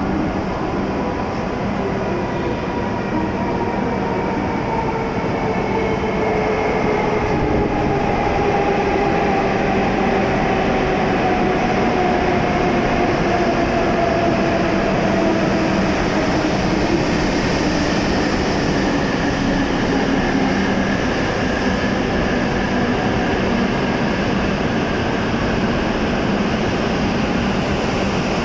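W7 series Shinkansen train rolling into the platform and braking, its traction motors' whine gliding slowly down in pitch over a steady rumble of the cars passing.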